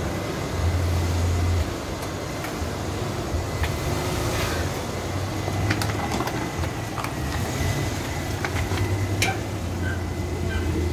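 Small mini van's engine running at low revs as the van creeps forward, a steady low rumble that swells briefly about a second in.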